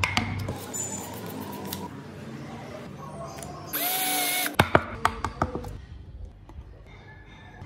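Cordless drill boring into a small strip of wood: a loud burst of under a second about halfway through, its whine rising as it spins up and cutting off abruptly. Right after come a series of light, sharp clicks and taps, small wooden pieces being handled.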